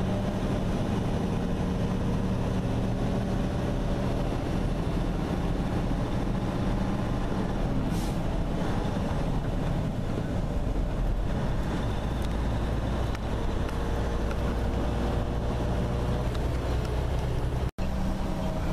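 Steady drone of a semi-truck's diesel engine and tyre noise on a wet road, heard from inside the cab while cruising at highway speed.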